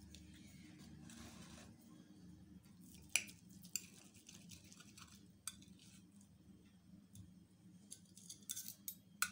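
Metal fork cutting through an omelette and clinking on a ceramic plate: a few faint scattered clinks, the sharpest about three seconds in, with more close together near the end.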